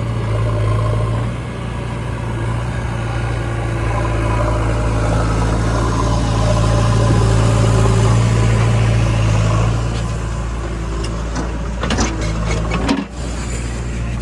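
Heavy diesel engine running steadily, with a few short knocks near the end.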